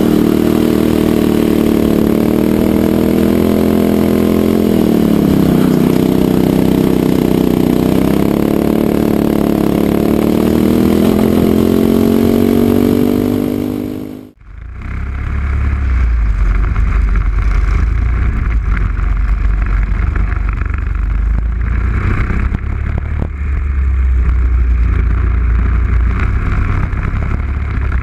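Racing kart engine running at speed, its pitch dropping and climbing again as it slows and accelerates. About halfway through it cuts out for a moment, and a deep, noisy rumble with no clear engine pitch takes over.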